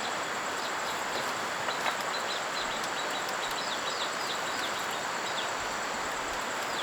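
Steady outdoor background hiss like running water, with a run of short, high, falling chirps in the middle and again near the end, over a steady high-pitched whine.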